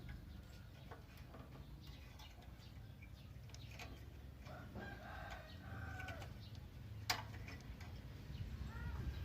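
A rooster crowing once, faintly, about five seconds in, over scattered light clicks and a sharp click about seven seconds in.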